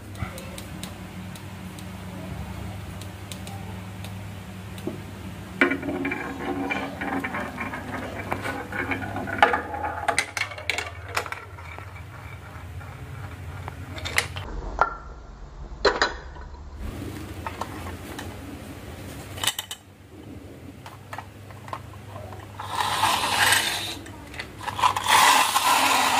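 Marbles and small toy vehicles rolling and clattering down a toy marble run and ramp: scattered clicks, a dense stretch of rapid clicking and rattling, then two louder rattling runs near the end.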